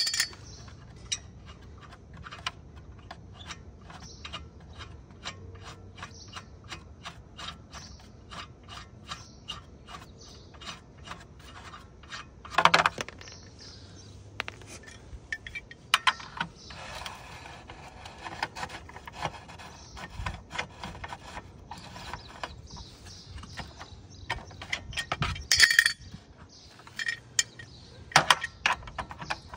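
Metal tools working a car wheel's rusty lug nuts: a run of evenly spaced metallic clicks, about two to three a second, then a few louder clanks of the lug wrench on the wheel.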